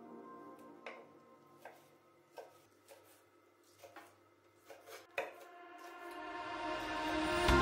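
Kitchen knife chopping green beans on a wooden cutting board: a series of light, separate knocks of the blade on the board, spaced unevenly. Near the end, a rising swell leads into music.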